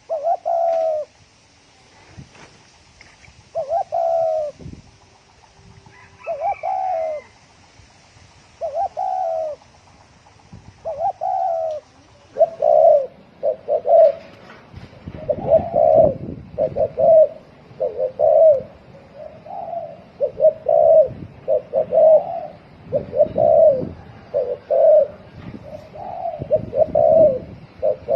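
Spotted dove cooing in the fast 'thổ còi' style, a run of short repeated coos. They come about every two and a half seconds at first, then quicken to about one a second from roughly halfway, with a low rumble underneath.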